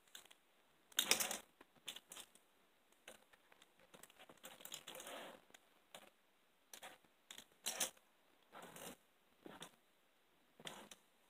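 Faint, intermittent rustling and crinkling of clothes and bedding being handled, in a dozen or so short bursts, the loudest about a second in and near eight seconds.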